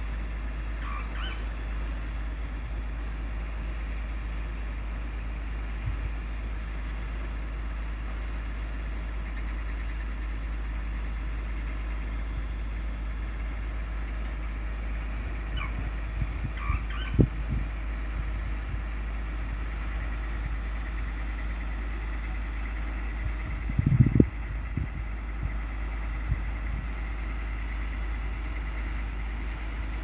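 Komatsu PC200 hydraulic excavator's diesel engine running steadily as it digs soil, with a few loud low thumps about midway and a louder cluster about two-thirds of the way in.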